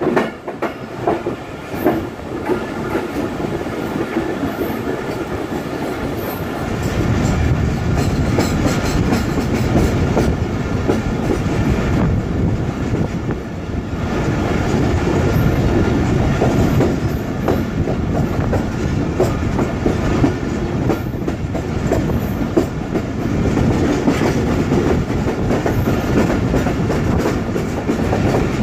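Express passenger train's coach wheels clattering over the rail joints as the train pulls out and gathers speed, heard from an open coach doorway. The rumble grows fuller and louder about six seconds in.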